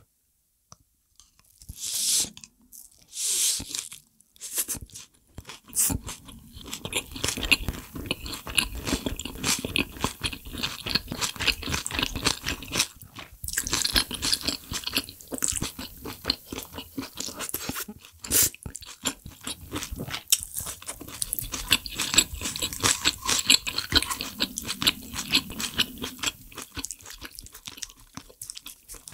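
A person chewing and crunching food close to the microphone: two louder noisy bites near the start, then a steady run of small crunches and mouth clicks.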